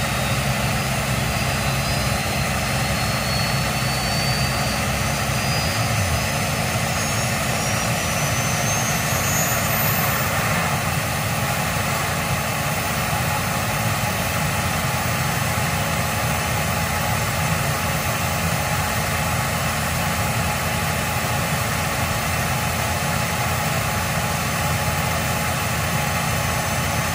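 Jet-turbine pulling tractor's turbine engine running at the line, its whine rising steadily in pitch over about the first ten seconds as it spools up, then holding steady.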